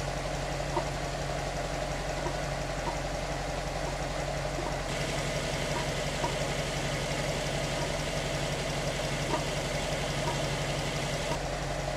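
Subaru WRX STI's turbocharged EJ20 flat-four idling steadily, heard from the engine bay, running on fresh Titanium R oil with a fuel additive during an idle noise check. A higher hiss joins from about five seconds in until near the end.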